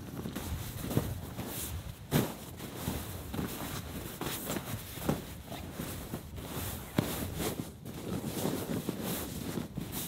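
Irregular crunching and knocking, with a few sharper knocks about 1, 2, 5 and 7 seconds in.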